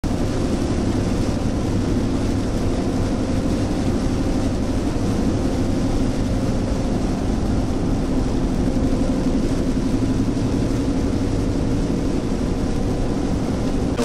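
Steady noise inside a vehicle driving at highway speed through heavy rain: tyres on the flooded road and rain on the windshield, over a low engine drone.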